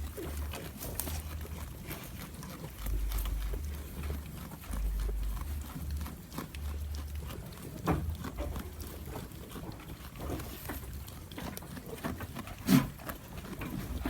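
A goat chewing crunchy food, with many small crunching crackles as it bites and chews. One short, louder thump near the end.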